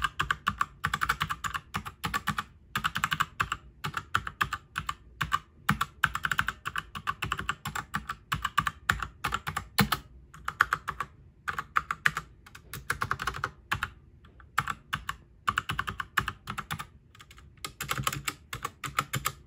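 Typing on a 60% mechanical keyboard with brown switches: quick clattering runs of keystrokes in bursts of a second or two, with short pauses between them.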